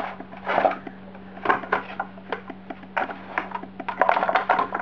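Paper packaging and small parts being handled and unwrapped: irregular rustling with small clicks and knocks, and a quick run of clicks near the end. A steady low hum lies underneath.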